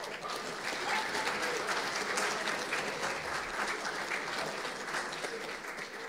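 Audience applauding, steady dense clapping with a few voices in the crowd.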